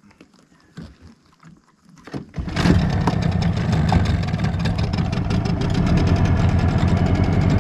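Small outboard motor on an aluminium dinghy starts up about two and a half seconds in and then runs steadily. Before it starts there are only a few light knocks.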